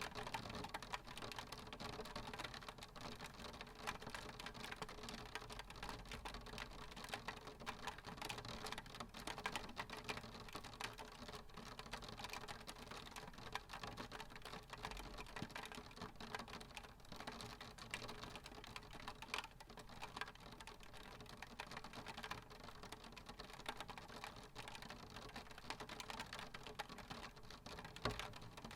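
Raindrops tapping irregularly on window glass: a faint, dense patter of small clicks over a soft hiss of rain.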